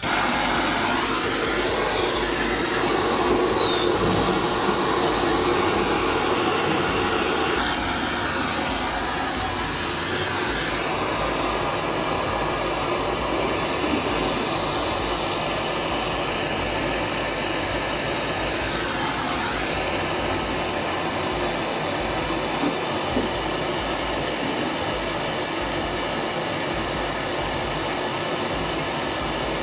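A machine running steadily with a continuous high whine, its pitch sagging and recovering slowly a few times.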